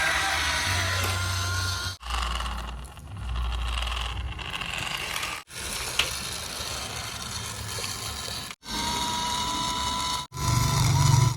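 Small electric motors of RC toy construction vehicles running with a whine and some rattle, in several short stretches that each cut off abruptly.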